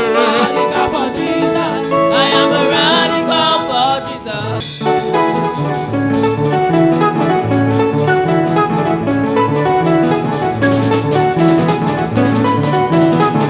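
Live church praise band: a voice sings over guitar and drums for the first few seconds, then the band plays on without singing, a steady beat under bright guitar notes.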